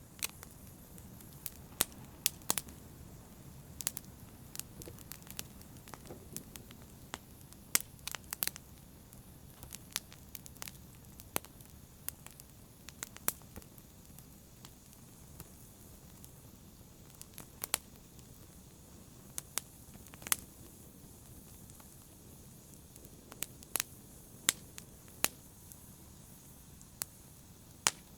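Fire in a brazier crackling: irregular sharp pops and snaps over a low, steady rumble of burning.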